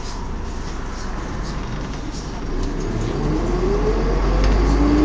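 Volvo B10M bus driveline rumbling, with a whine from its ZF automatic gearbox that sets in about three seconds in and climbs steadily in pitch as the bus picks up speed.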